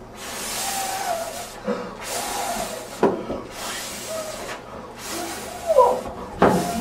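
A group of people hissing in unison with their voices: about five long hisses, each roughly a second long, with a few voices gliding in pitch over them. A thump comes near the end.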